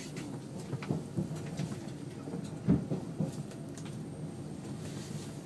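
Electric train running, heard from inside the driver's cab: a steady low hum with irregular knocks and rattles, the loudest a little under three seconds in.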